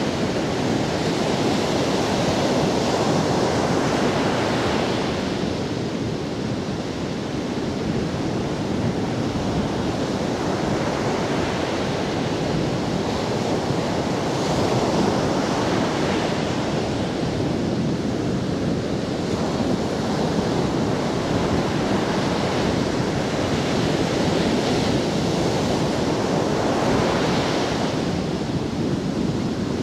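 Ocean surf breaking on a sandy beach: a continuous wash of waves with the hiss swelling and easing every several seconds as each breaker comes in and its foam runs up the sand.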